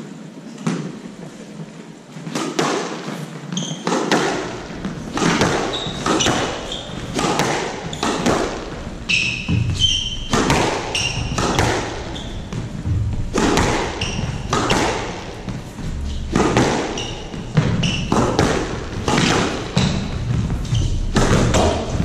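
Squash rally in a court with a wooden floor: rackets striking the ball and the ball thudding off the walls, about once a second, with reverberation from the hall. Short high squeaks of court shoes on the wooden floor come between the strikes.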